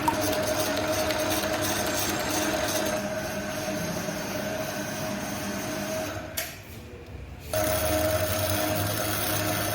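Steady hum of a small electric motor running, dropping away for about a second about six seconds in and then starting again.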